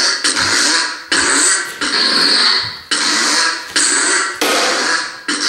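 Lightsaber sound board playing a joke, fart-themed sound font as the saber is swung. A run of about five noisy swing sounds cuts in suddenly, and each fades before the next.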